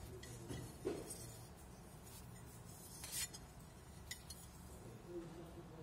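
A few light metallic clinks and scrapes as lengths of aluminium extrusion profile are handled, the loudest about three seconds in.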